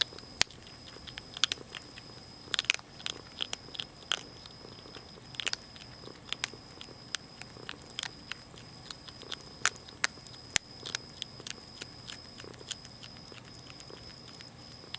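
Young Virginia opossum chewing dry cat food kibble, with sharp, irregular crunches that come in quick clusters at times.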